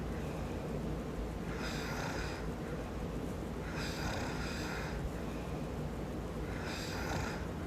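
A man snoring in his sleep: three snoring breaths, each about a second long, coming about every two and a half seconds over a steady low rumble.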